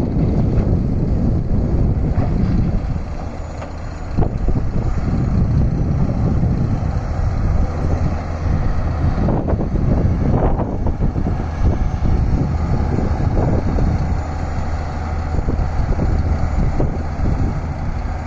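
Heavy diesel engine of a Hitachi Zaxis 670H hydraulic excavator running steadily under load as it swings and digs, with short clatters of earth and rock about halfway through.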